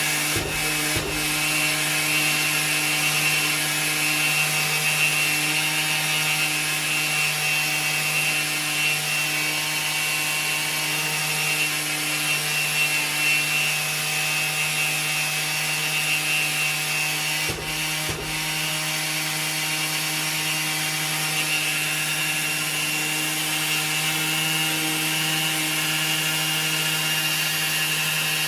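Makita electric orbital sander running steadily, its pad rubbing sandpaper over a painted alloy wheel rim to take off corrosion and old clear coat. The motor's hum and whine hold constant, with two brief bumps, about a second in and about eighteen seconds in.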